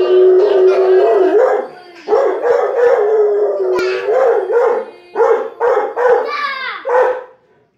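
Dog howling really loud, crying for another dog: one long wavering howl, a brief break, a second long howl, then a string of shorter howls and barks, the last one falling in pitch.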